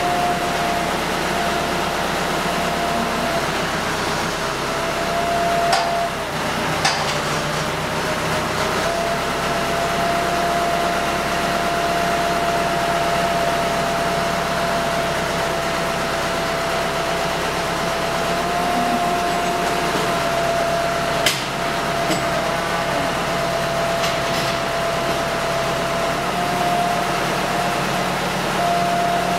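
Tractor engine running steadily while its rear-mounted bale cutter works a round silage bale, with a steady high whine held throughout. A few sharp knocks, the loudest about two-thirds of the way through.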